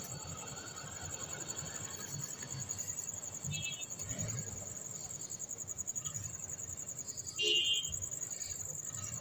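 A steady, high-pitched insect-like trill, pulsing finely, with two short chirps about a third of the way in and again near the end, over faint low knocks.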